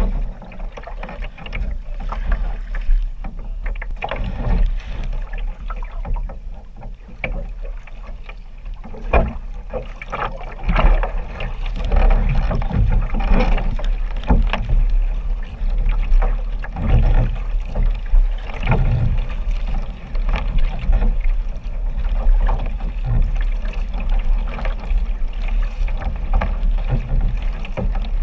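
Water rushing and splashing against the hull of a moving sprint kayak, with the irregular slap of paddle strokes over a steady low rumble.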